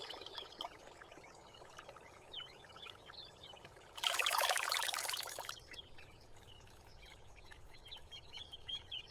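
Small birds chirping on and off over a quiet outdoor background, with a louder rush of noise lasting about a second and a half, around four seconds in.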